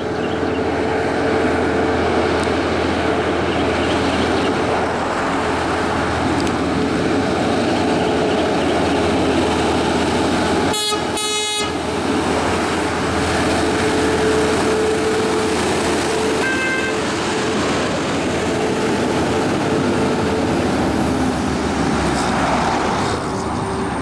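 A heavy truck working up a hill, its engine running steadily under load. About 11 seconds in, a truck horn gives two short honks.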